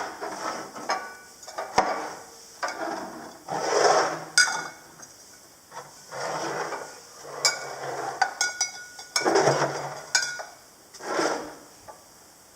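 Glass bottles of fizzy second-fermentation kombucha being burped one after another: each cap is loosened and carbonation gas escapes in a short hiss, about eight or nine times. Sharp clicks and clinks of the caps and glass bottles come between the hisses.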